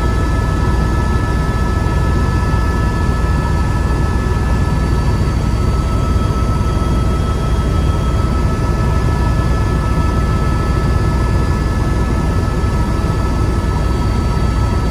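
Helicopter cabin noise in flight: a steady, loud rotor and engine drone with constant high whining tones over it.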